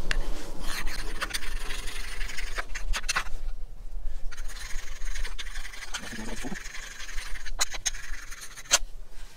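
Spine of a knife scraping down a new, thick ferrocerium rod, rasping off its black oxide coating so that the rod will spark. Two long spells of scraping with a short pause between, then a few sharp ticks near the end.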